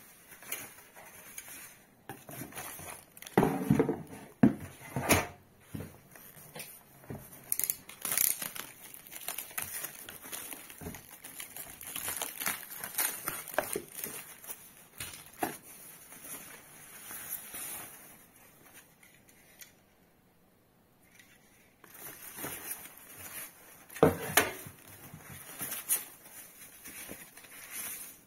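Plastic film and foam-sheet packaging crinkling and rustling as light fixture parts are pulled out of a cardboard box. The handling is irregular, with louder bursts a few seconds in and again near the end, and a lull of about two seconds past the middle.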